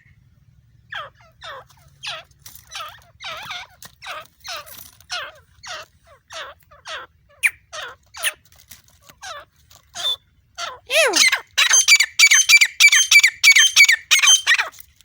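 A partridge (teetar) calling: a long run of short, shrill calls, each falling in pitch, about two a second. In the last third they come faster and louder.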